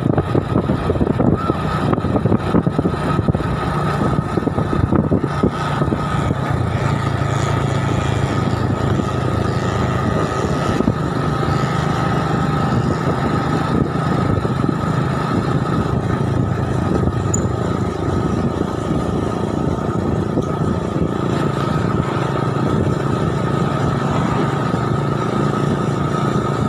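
Motorcycle engine running steadily while riding at road speed, with heavy wind noise on the microphone.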